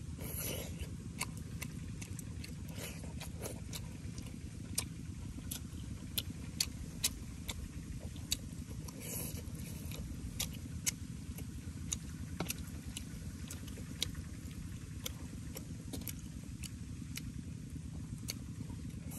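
A man eating soup from a spoon: wet mouth clicks and chewing, with a short slurp near the start and another about halfway through, over a steady low rumble.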